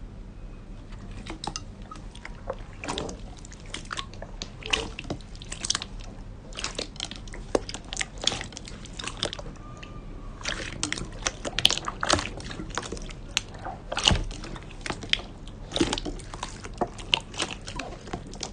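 Clear slime mixed with red glitter slime being squished, stretched and pressed by hand in a bowl: irregular wet squelches and sharp little pops and clicks, busier and louder in the second half.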